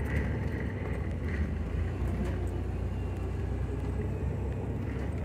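Jeep's engine running and its drivetrain and tyres rumbling steadily as it drives slowly along a rutted dirt trail, with a few light knocks.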